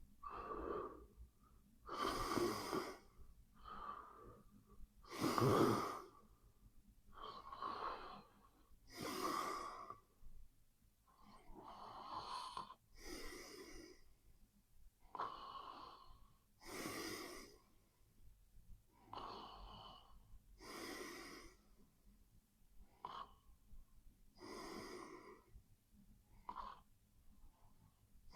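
A sleeping person snoring: a raspy, noisy breath every second or two in a steady rhythm, with one louder snore about five seconds in.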